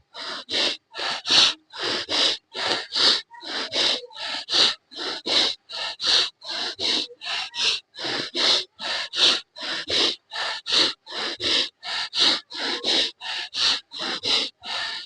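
A person breathing fast and forcefully through the nose in a pranayama exercise: a steady train of short, sharp rushes of air, about two and a half breaths a second.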